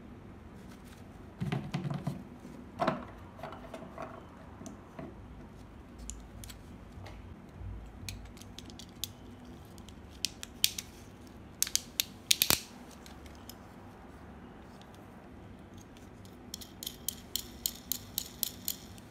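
Plastic Beyblade parts clicking and knocking as they are handled and fitted together, with a rapid run of about a dozen ratchet-like clicks near the end as a gold layer is twisted against its disc.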